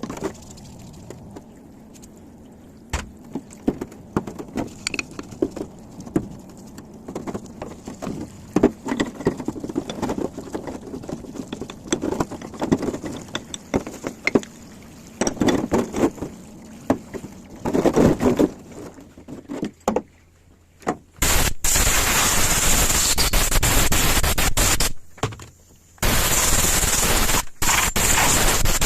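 Metal parts and tools clinking, knocking and scraping as a Bosch starter motor is worked on. About two-thirds of the way in, a loud steady hissing noise starts, runs for about four seconds, cuts off, then comes back for about three seconds more.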